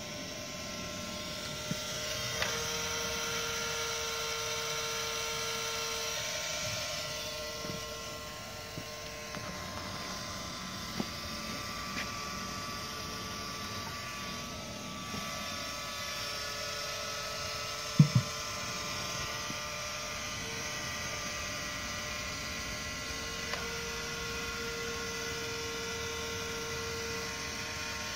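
Electric rotisserie motor running steadily, turning the spit with a hum made of several steady tones. A few light clicks, and a sharp double knock about two-thirds of the way through.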